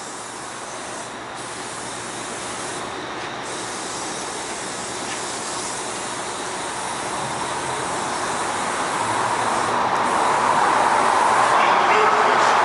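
Aerosol spray-paint can hissing in long strokes as a tag is sprayed onto a concrete wall, stopping briefly a few times between strokes. Beneath it a steady rumble swells gradually and is loudest near the end.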